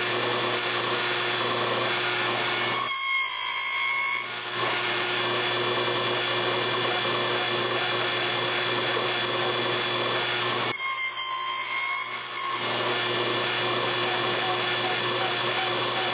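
Table saw running steadily while box joint cuts are made in boards held in a sliding jig. Twice, about 3 and 11 seconds in, the sound changes for about a second and a half as the blade cuts through the wood.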